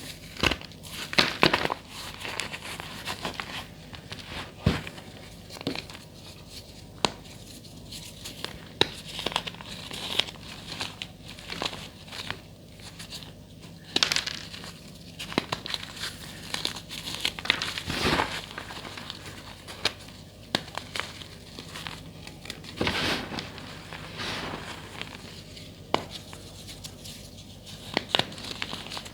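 Blocks of gym chalk being crushed, giving irregular crunching and crumbling with occasional sharper, louder cracks.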